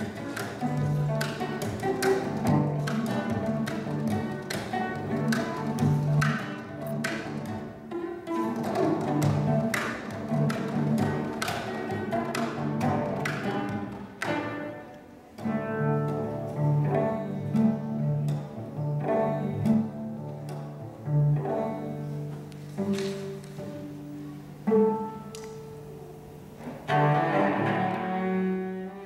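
Two cellos playing a duet: a steady, repeated low note under a line of sharply attacked, plucked and bowed notes. Near the end, sustained bowed notes swell up.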